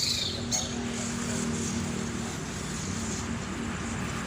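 Motor vehicle engine running steadily, a low even hum, with a short high bird chirp about half a second in.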